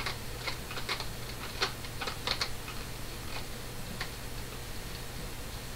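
Irregular small clicks and taps from handling the needle and presser-foot area of a small plastic sewing machine that has jammed. The clicks come thick in the first couple of seconds, then thin out to a few scattered ticks.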